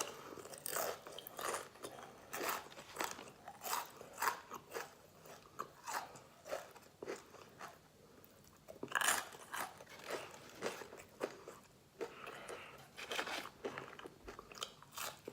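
Crunchy fried chicken being bitten and chewed, a crisp crunch about twice a second, with a louder run of crunching about nine seconds in.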